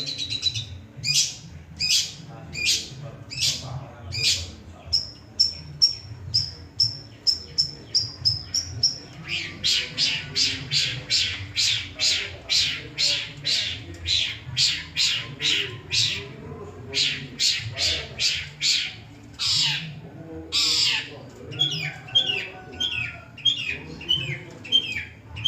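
Long-tailed shrike (cendet) singing a varied medley. First come harsh, scratchy notes about twice a second, then a run of short high whistles, then faster harsh notes about three a second, and short falling notes near the end.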